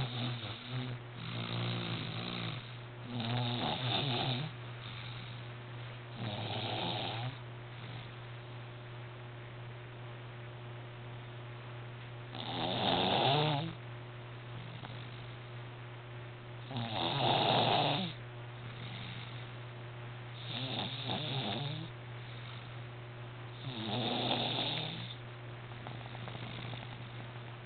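Baby snoring, one snore every few seconds with a longer pause a third of the way in; the loudest snores come around the middle. A steady low hum runs underneath.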